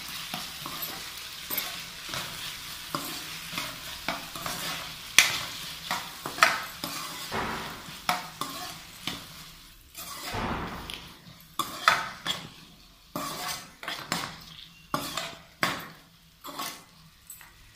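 Diced potatoes frying in hot oil in a pan, sizzling, while a spoon stirs in the salt, scraping and clicking against the pan in repeated strokes. The sizzle dies down over the second half, leaving the stirring strokes more distinct.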